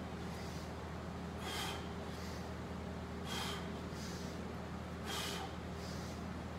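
A man breathing out hard and sharply, three times at even intervals of a little under two seconds: forceful exhales, one on each rise from a banded front squat.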